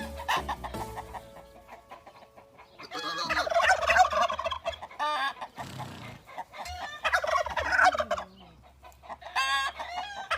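Domestic fowl calling loudly in about four bursts, some with a rapid stuttering gobble-like pattern. A few music-like notes are heard at the start.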